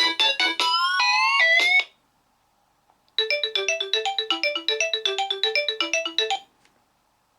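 Nokia 6280 mobile phone ringtones. One ends with a few quick rising, gliding notes about two seconds in. After a second's gap another starts: a fast run of short electronic notes over a bouncing lower line, which stops a little past the middle.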